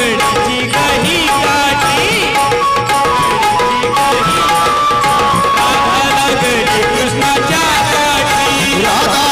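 A man sings a folk song into a microphone, accompanied by a harmonium holding long steady notes and by tabla-style hand drums keeping a steady beat.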